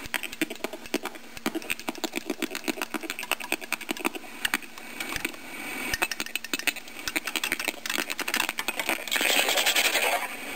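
Modded Jakks Pacific Spynet voice changer putting out a glitchy electronic effect, a rapid stuttering train of clicks and buzzes. Near the end it turns into a burst of noisy hiss.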